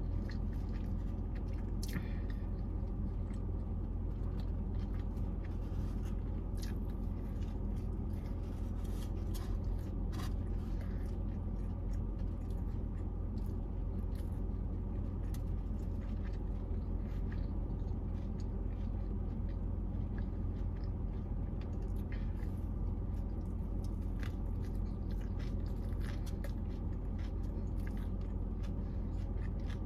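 A person chewing and biting into a hamburger, with scattered soft mouth clicks, over a steady low hum.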